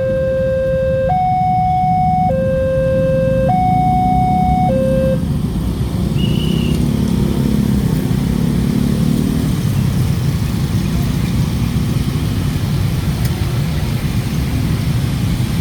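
Railway level-crossing warning siren sounding a two-tone hi-lo signal, switching between a lower and a higher pitch about every second, then cutting off about five seconds in. A loud, steady low rumble runs underneath throughout.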